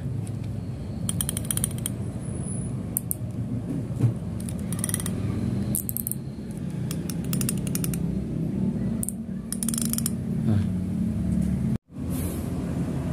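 Oncak Dracol baitcasting reel's home-made drag clicker, a thin steel plate, clicking very rapidly in several short bursts as line is drawn off the spool against the drag, over a steady low hum.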